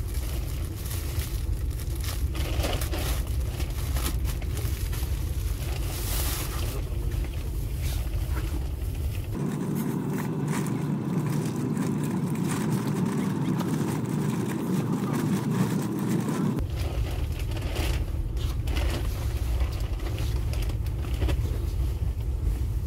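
Steady low rumble of a moving passenger train carriage, with a plastic bag crinkling and bed linen rustling as it is unpacked and unfolded. For several seconds in the middle the deep rumble gives way to a higher, denser hum.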